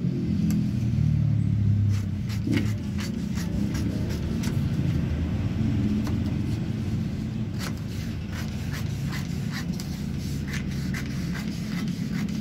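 Scissors cutting through a sheet of pattern card in a run of short snips, about one a second, over a steady low rumble.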